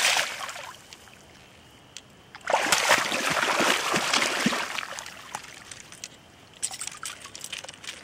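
A striped bass thrashing and splashing in shallow water as it is held and handled, in two loud spells: one at the very start and one from about two and a half seconds to five seconds in, then only small splashes.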